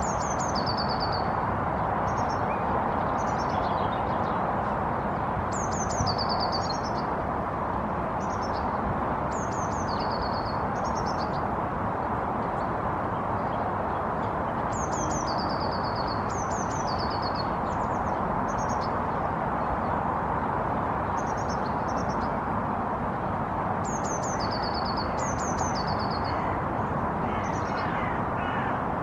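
A songbird singing short, high phrases that step down in pitch, repeated every few seconds, over a steady, even background noise that is the loudest sound throughout.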